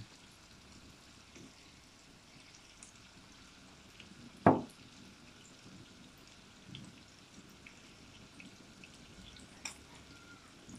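Small pieces of meat frying in oil in a pan: a faint sizzle with scattered tiny pops. A single sharp knock, the loudest sound, comes about four and a half seconds in.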